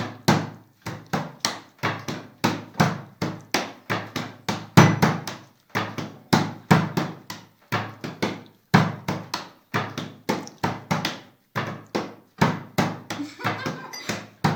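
Open hands slapping a tabletop one after another in quick turns, a run of sharp, short slaps about three a second, somewhat unevenly spaced.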